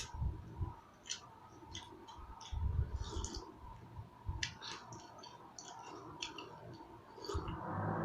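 Close-miked eating sounds: a person chewing, with scattered wet mouth clicks and smacks at an irregular pace.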